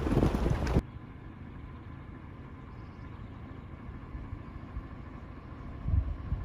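Wind buffeting the microphone, cut off abruptly under a second in, then the steady low road rumble of the 2020 Toyota 4Runner driving, with a brief louder thump near the end.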